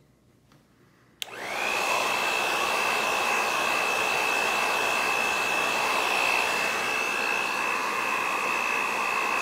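Hand-held InfinitiPRO by Conair hair dryer switched on with a click about a second in, its motor quickly rising to a steady high whine over the rush of blown air, running steadily on.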